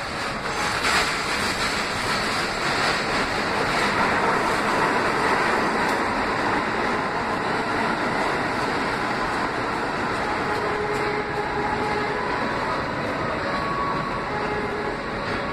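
R32 subway train pulling out of the station and running past: a steady rumble of steel wheels on the rails, with faint squealing tones later on, easing off slightly as the last car goes by into the tunnel.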